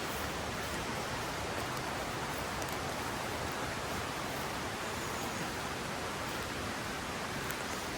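Mountain river rushing over its bed: a steady, even rush of flowing water.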